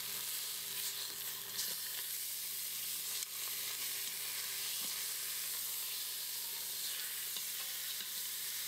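Chicken breasts sizzling steadily in ghee in an Instant Pot's stainless steel inner pot on the sauté setting as they are flipped with metal tongs, with a few faint clicks as the tongs touch the pot.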